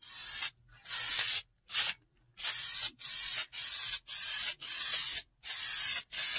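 Aerosol can of black vinyl and fabric paint spraying in about ten short hissing bursts, with a brief pause about two seconds in. The can is nearly empty and starting to sputter.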